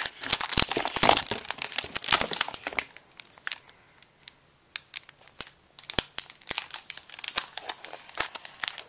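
Packaging being handled during an unboxing: dense crinkling and crackling for the first few seconds, a short lull, then scattered crinkles and clicks.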